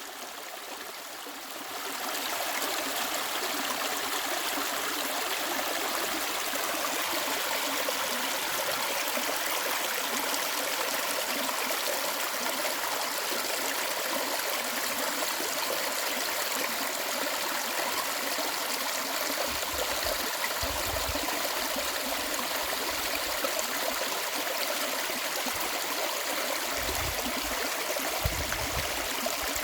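Mountain stream running over rocks: a steady, even rush of flowing water that fades in over the first two seconds. Two brief low rumbles come in the second half.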